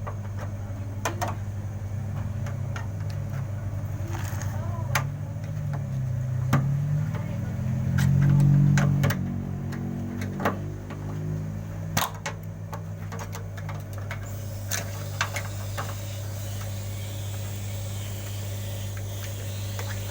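Electrolux washing machine running, with a steady electric hum. Near the middle, a motor tone rises and then falls back. Sharp clicks and knocks sound at intervals.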